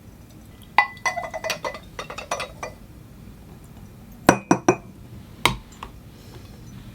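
Coffee-making ware clinking: a quick run of light, ringing clinks about a second in, then three sharp knocks close together and one more a second later.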